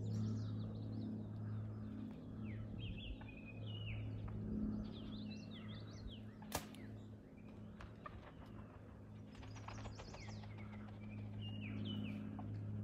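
The single sharp crack of a Mathews Phase4 compound bow being shot, about six and a half seconds in, over songbirds chirping and a steady low hum.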